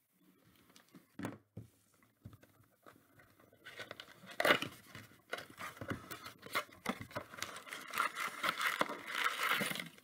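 Cardboard Donruss trading-card blaster box being handled and opened by hand: scattered taps and scrapes, then paper and cardboard rustling, crinkling and tearing, densest in the last two seconds as the packs are pulled out.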